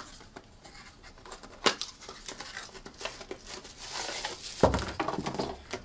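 Cardboard packaging being handled: a small white product box is lifted out of a shipping carton with rustling and crinkling and a few sharp taps, and a single heavier thump a little over two-thirds through.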